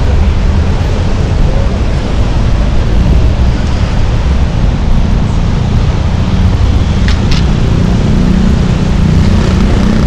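Steady street traffic at a busy city crossing: engines and tyres making a dense, continuous low rumble, with a couple of faint clicks about seven seconds in.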